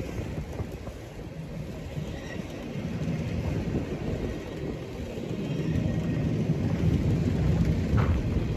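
Norfolk Southern freight train rolling past, its railcars making a steady low rumble on the rails that grows louder through the second half, with a couple of brief squeaks near the end.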